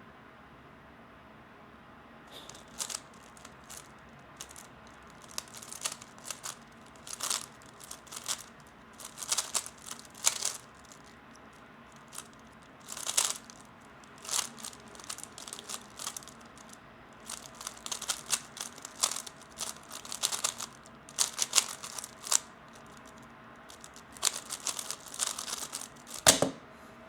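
A 3x3 Rubik's cube being turned fast in a speedsolve: quick runs of plastic clicking and clacking as the layers are turned, broken by short pauses. It ends with one louder thump about 26 seconds in.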